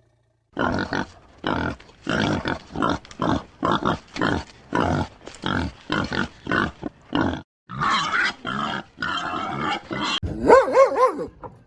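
A pig grunting in a rapid run of short grunts, two or three a second. Near the end a higher, wavering whine starts, like a dog whimpering.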